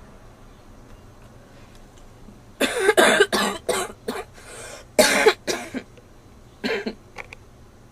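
A girl coughing in fits. A quick run of about six coughs starts about two and a half seconds in, another run of three comes about five seconds in, and one or two weaker coughs follow near the end.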